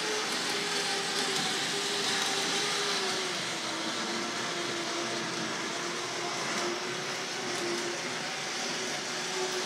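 Tri-ang diesel railcar's electric motor running steadily as the three-car train climbs an incline, its hum dropping slightly in pitch about three and a half seconds in as the motor takes the weight of the train on the slope.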